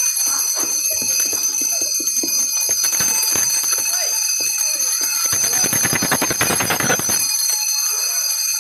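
A hand bell rung without pause, its high ringing steady throughout, over voices. About five seconds in, a burst of rapid rattling strokes rises for about two seconds.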